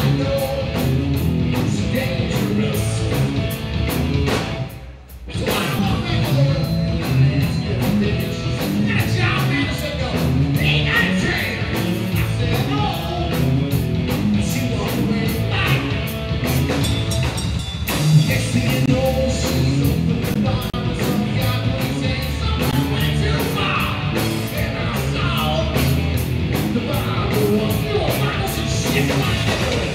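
Live hard rock band playing: distorted electric guitars, bass guitar and drum kit, with a vocalist singing into a microphone. About five seconds in the band stops dead for about a second, then crashes back in.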